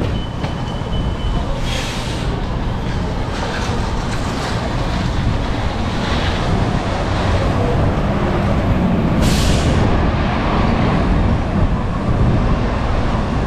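City street noise: a steady low rumble of traffic, with short hisses about two seconds and about nine seconds in, the second the louder.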